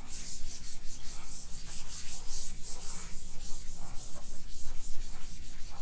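Chalkboard duster wiping chalk off a chalkboard in quick back-and-forth strokes, a rhythmic scratchy rubbing several times a second.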